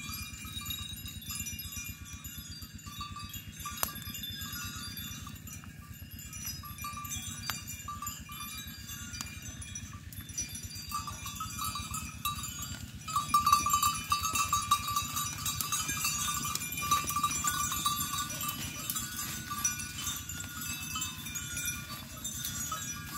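Goats browsing in undergrowth, with a continuous chorus of high, ringing tones around them that grows louder about halfway through.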